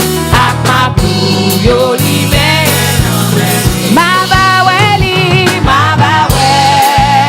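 Church worship band playing a Haitian gospel song, with regular drum hits and a steady bass under a held, wavering lead melody.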